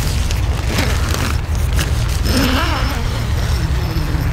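Wind rumbling on the microphone by the sea, with the nylon tarp shelter rustling as the person inside shifts about. About two seconds in, a short wordless voice sound glides up and down in pitch.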